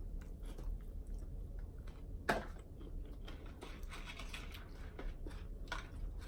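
A person chewing and crunching food close to the microphone, with scattered small clicks and one sharp crunch a little over two seconds in.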